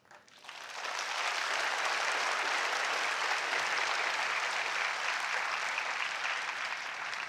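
A large seated audience applauding: the clapping swells over the first second, holds steady, then eases a little toward the end.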